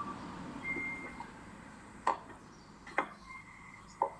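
Three short sharp clicks about a second apart, with a couple of faint brief high tones.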